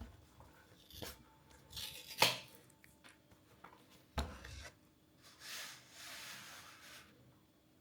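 Cardboard product box being opened and handled: scattered rustles and taps, a sharp tearing click about two seconds in, a dull thump about four seconds in, then a soft sliding rustle.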